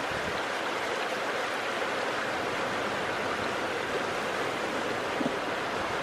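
Steady rushing of flowing river water.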